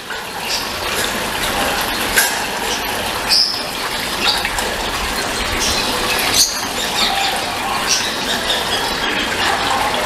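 A steady rushing noise like running water, with a few short high squeaks and light clicks over it between about two and seven seconds in.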